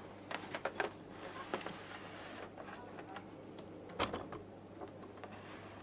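Light clicks and taps of a plastic smart pen and a plastic toy globe being handled, a few in the first second and a louder knock about four seconds in, over a faint steady hum.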